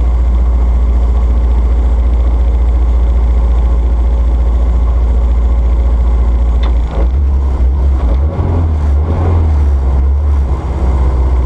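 Ford Sierra RS Cosworth's turbocharged 2.0-litre four-cylinder engine idling with a heavy low rumble, heard from inside the cabin. About seven seconds in, the note turns uneven for a few seconds before settling again.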